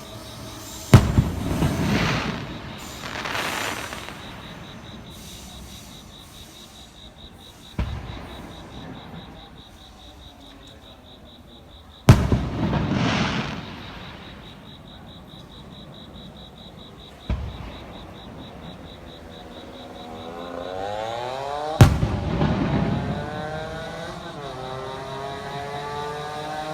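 Aerial firework shells bursting: five loud booms, roughly four to five seconds apart, each followed by a rolling rumble and crackle. From about twenty seconds in, a rising whine joins them.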